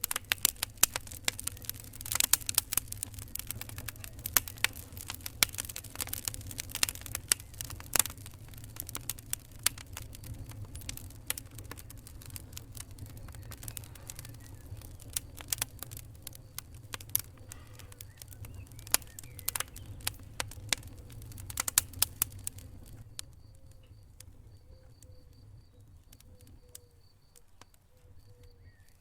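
Fire crackling: irregular sharp pops and snaps over a low steady rumble. The crackling thins out and gets quieter about three-quarters of the way through.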